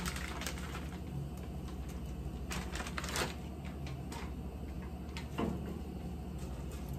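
Crinkling of a plastic bag and light clicking of dry sweet potato glass noodles as they are handled and set into a pot, with a cluster of rustles about two and a half to three seconds in and another near five and a half, over a steady low hum.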